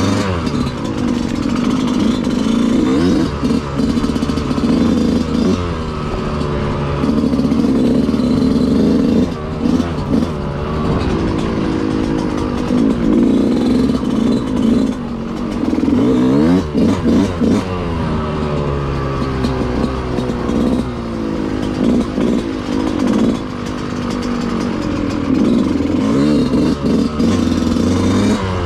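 Dirt bike engine being ridden hard. Its pitch climbs and drops over and over as the throttle opens and closes and the gears change.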